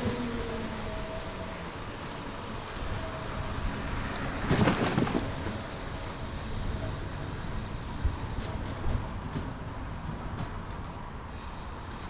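Street ambience heard from a moving bicycle: a steady background rumble of traffic and riding noise, with one short, louder rush about four and a half seconds in.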